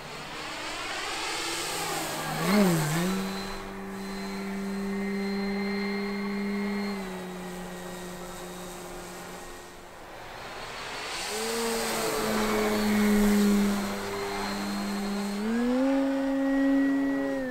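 Electric motor and propeller of an E-flite Carbon-Z Cessna 150 Aerobat RC plane whining in flight. Its pitch steps down and up several times, and it swoops and grows loudest as the plane passes close, about two and a half seconds in and again around thirteen seconds. It cuts off at the end.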